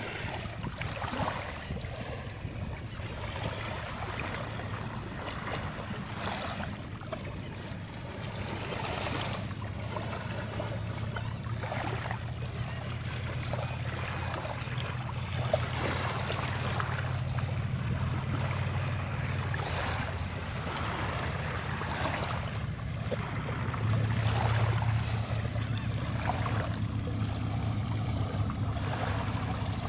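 Shallow beach swash: thin sheets of water washing over wet sand at the shoreline in repeated swishes every second or two, over a steady low drone.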